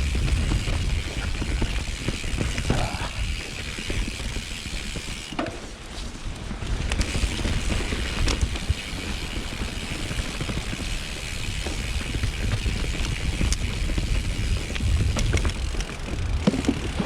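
Mountain bike rolling down a steep, rough trail: tyre noise and frame and drivetrain rattle with scattered sharp knocks from roots and rocks, over a steady low rumble.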